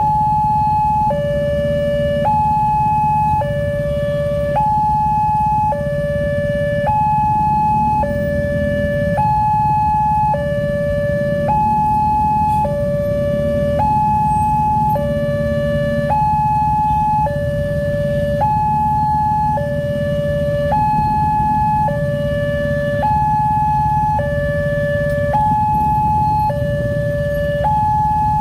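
Wantech railway level-crossing alarm sounding its two-tone electronic warning, switching between a high and a low tone about once a second, the signal that a train is approaching and the barrier is down. Underneath is a low drone of motorcycle engines idling at the barrier.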